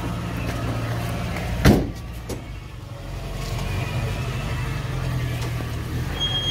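Maruti Gypsy's LPG-fuelled engine idling steadily, with the door slamming shut once a little under two seconds in, followed by a lighter knock.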